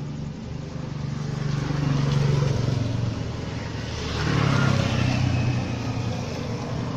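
An engine running with a steady low hum, swelling louder twice, about two seconds in and again about four and a half seconds in.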